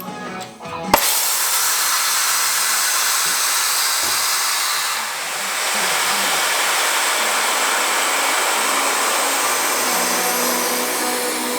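A sharp click about a second in, then a steady hissing, rushing noise like blowing air that runs on without pitch or rhythm.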